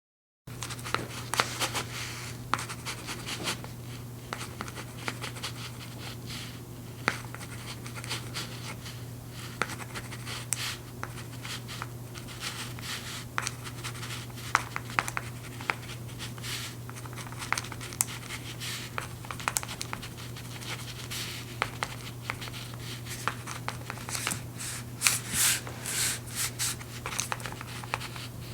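Pen writing on paper for a signature: a long run of short scratching strokes with brief pauses, and a few longer, louder sweeping strokes near the end. A steady low hum sits under it.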